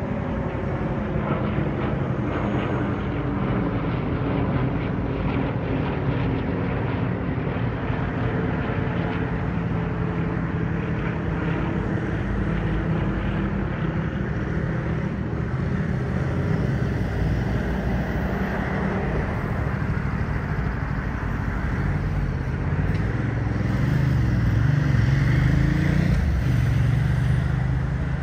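Piston engines of a formation of four propeller warbirds flying overhead, a steady drone that swells louder a few seconds before the end.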